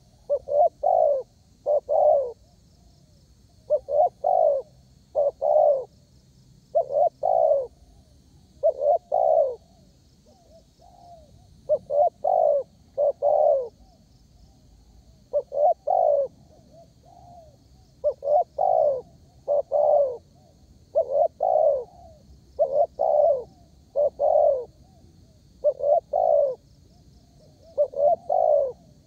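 Spotted dove cooing persistently in groups of two or three short, low coos, one group every couple of seconds. A faint high twittering runs underneath.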